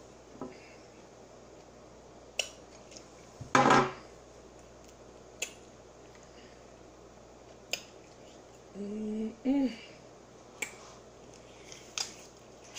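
Close-up eating sounds from a fried chicken drumstick: sharp mouth smacks and crunching clicks every second or two, with one louder, longer crackle about three and a half seconds in. A short hummed "mm" comes a little past halfway.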